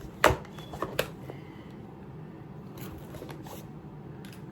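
Handling noise from small toiletry items being picked up and set down: a sharp knock early on, two lighter knocks just after, then faint rustling, over a steady low hum in the room.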